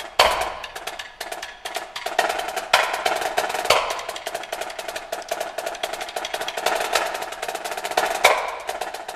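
Marching snare drum played with sticks: fast rolls and dense rudiments with several loud accented strokes, thinning to more scattered strokes near the end.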